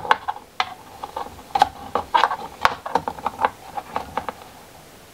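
Steel rule and pencil handled against a plastic turbine housing during marking out: a run of small irregular clicks, taps and scrapes that stops about four and a half seconds in.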